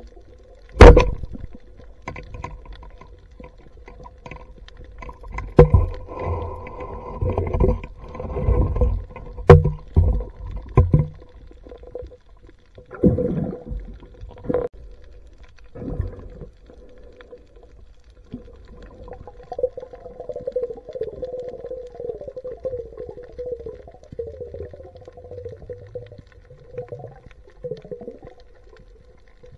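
Underwater sound picked up by a diver's camera: sharp knocks and thuds of gear and a fish being handled in the first half, over a steady hum. Later it settles into a quieter wavering warble.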